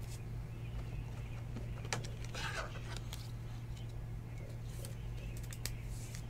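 Faint clicks and a soft rustle of trading cards in clear plastic holders being handled and stacked, over a steady low hum.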